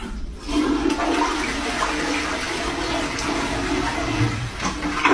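Toilet flushing: water starts rushing into the bowl about half a second in and runs steadily, getting louder with a gurgle near the end.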